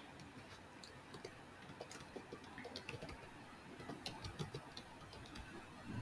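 Faint, irregular clicking of computer keyboard keys as a line of text is typed.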